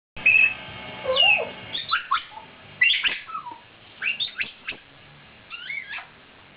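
Congo African grey parrots calling in a string of short, squeaky whistles and chirps that glide up and down in pitch, some of them mimicry of a squeaky toy phone.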